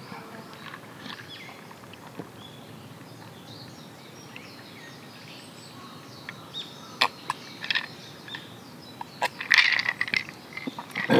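Quiet forest ambience with faint bird chirps. In the second half come a few sharp clicks of ice in a glass mug and the sound of a highball being sipped.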